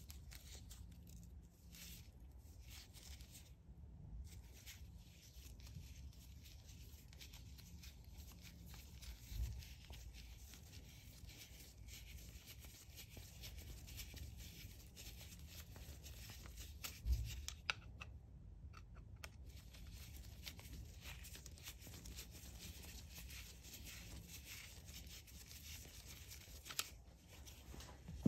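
Faint scraping and clicking of a flat screwdriver turning the slotted pivot bolt out of a dirty Sachs Huret rear derailleur, with two dull knocks, one about a third of the way in and one just past halfway.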